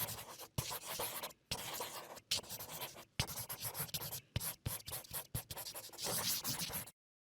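Drawing strokes scratching across paper in a quick series with short pauses between them, with a few sharper taps along the way. The sound cuts off suddenly near the end.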